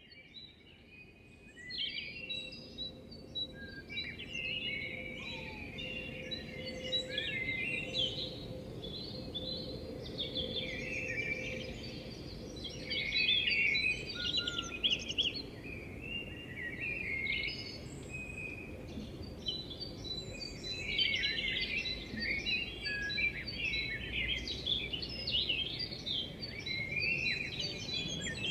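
Many songbirds singing and chirping, a dense chorus of quick high calls over a steady low background noise, fading in over the first couple of seconds.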